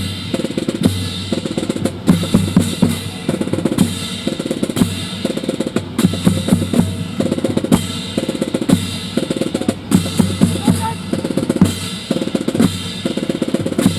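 Marching drum cadence of snare and bass drum, played in a steady repeating rhythm to accompany a drill team's routine.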